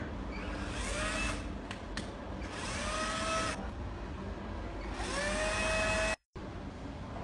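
Cordless drill run three times in bursts of about a second as it fastens an overhead sliding-door top track, its motor whining up in pitch each time and then holding steady. A single sharp click comes between the first two runs.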